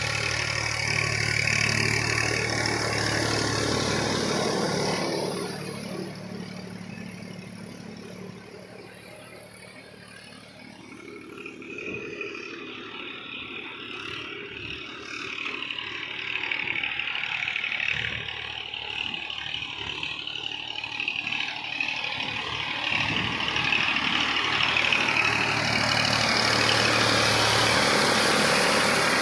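Massey Ferguson 1035 DI tractor's three-cylinder diesel engine running under load as it works through deep mud. The sound fades as the tractor moves away a few seconds in and grows loud again near the end as it comes close.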